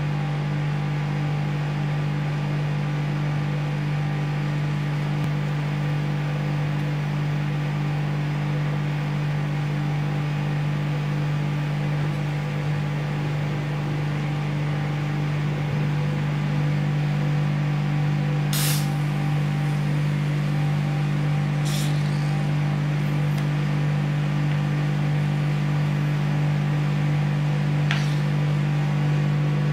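Rolled-ice-cream machine's refrigeration compressor running with a steady low hum. A few brief sharp hissing sounds come through it, one at about two-thirds of the way and two more later.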